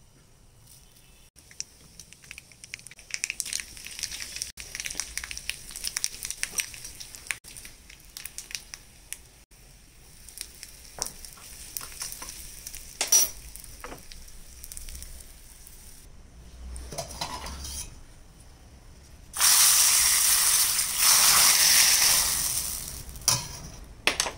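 Tempering for rasam: mustard seeds crackling and popping in hot oil, then dried red chillies and curry leaves sizzling as a metal spoon stirs them. A single sharp clink a little past halfway, and a much louder burst of sizzling for about four seconds near the end.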